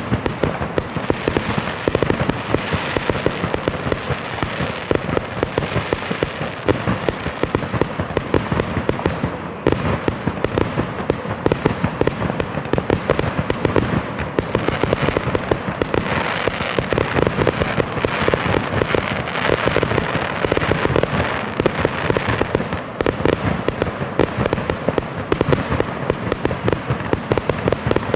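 Fireworks going off continuously: a dense barrage of overlapping bangs and crackling, with no break longer than a moment.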